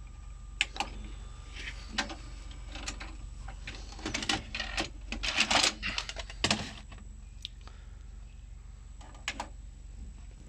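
Irregular sharp clicks and knocks, clustered thickest a little past the middle, over a steady low hum, heard on the sound track of a news report played back from VHS tape.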